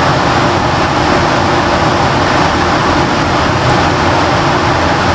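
A steady, loud rushing noise with a low rumble under it, unchanging throughout, like an air conditioner or fan running.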